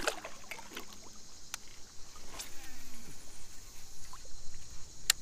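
A fishing kayak on a river: water splashing and dripping off the paddle blade at the start, then scattered small clicks and knocks from the gear, with one sharp click near the end.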